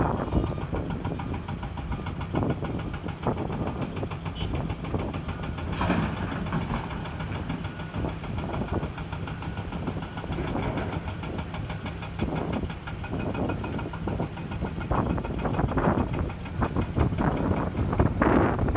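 Komatsu hydraulic excavator's diesel engine running steadily, with scattered knocks and scrapes, more of them near the end.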